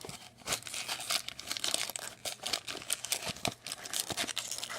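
Plastic wrapping on a sealed trading-card box crinkling and tearing as it is opened, with many sharp crackles.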